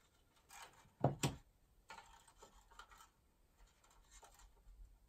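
Two knocks in quick succession about a second in as a plywood model bridge module on wooden legs is set down on a workbench, with faint rubbing and scratching of hands handling it before and after.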